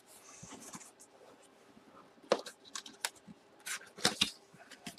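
Hands handling and tipping a cardboard collectibles box: soft scrapes and rustling, with a few sharp taps, one about two seconds in and a couple near the end.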